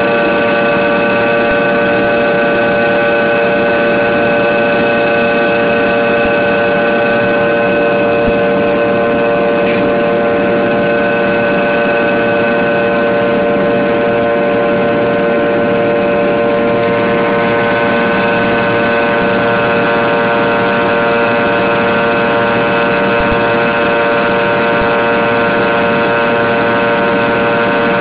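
Steady in-flight cabin noise of a Fokker 100 airliner: its rear-mounted Rolls-Royce Tay turbofans give a loud drone of several steady whining tones over a rushing hiss of airflow. The mix of tones shifts slightly about seventeen seconds in.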